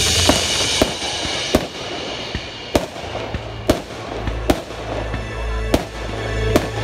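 Aerial fireworks bursting in a series of sharp bangs, about seven in all, roughly a second apart, over the show's accompanying music.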